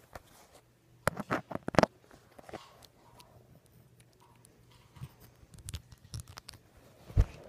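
Handling noise from a phone being moved over a pile of clothes. A quick run of clicks and knocks comes about a second in, scattered taps follow later, and a single heavier thump comes near the end.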